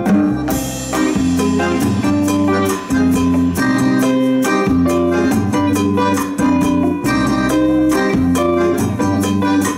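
Live band playing an instrumental passage with no vocals: electric guitar, bass guitar and drum kit keeping a steady beat, with saxophone and bayan (button accordion) holding long notes over them.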